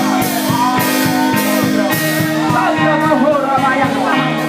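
Live church band music: a drum beat under held keyboard chords, with a voice singing over it.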